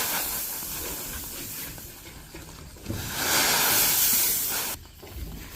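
Loud, even hissing rush with no clear tone. It swells about three seconds in and cuts off suddenly near the end.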